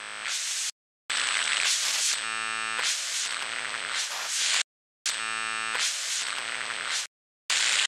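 Digital glitch sound effect for a logo reveal: harsh static hiss with an electric buzz coming and going. It cuts off abruptly and restarts about three times.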